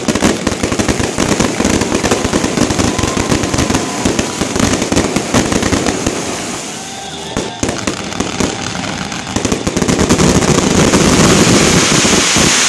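Aerial fireworks going off in a dense barrage of rapid bangs and crackling. The barrage eases briefly about halfway, then builds to a loud, continuous crackle near the end.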